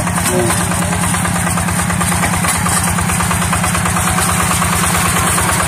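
Two-wheel hand tractor's single-cylinder diesel engine running steadily under load with an even, rapid chugging as it pulls a plough through a flooded rice paddy.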